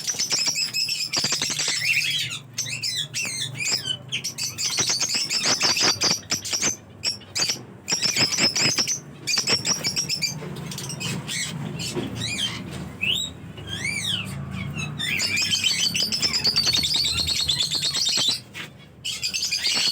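Parrots chattering and squawking, a dense run of short high chirps and clicks, with a few rising-and-falling calls about two-thirds of the way through.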